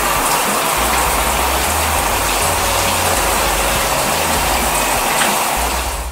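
Water spraying steadily from an overhead car-wash shower head, a loud even rushing hiss that rinses off the soap foam and stops near the end. It is a cartoon sound effect.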